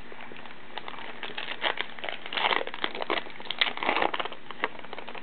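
A trading card pack wrapper from a 2009 Upper Deck Goodwin Champions pack being torn open and crinkled by hand. It makes a run of uneven crackles and rustles for about four seconds, loudest around the middle.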